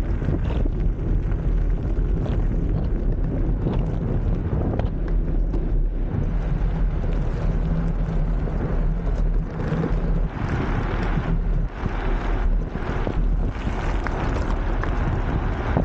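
Heavy wind buffeting the microphone on a moving blokart, over the low rumble of its wheels rolling on asphalt. Several stronger gusts of hiss come and go late on.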